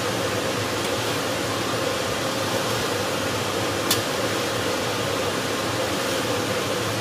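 Chilli sambal frying in oil in a metal pan, a steady sizzling hiss under a faint constant hum, with one sharp clink of the spatula against the pan about four seconds in.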